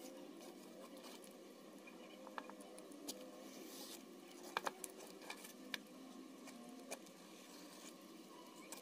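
Faint crinkling and rustling of aluminium foil being handled and taped onto a box, with a handful of short sharp clicks and taps around the middle.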